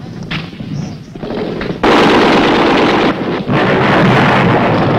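Combat gunfire: a few scattered sharp shots, then about two seconds in a sudden loud onset of dense, continuous heavy fire and blast noise, briefly dipping a little after three seconds.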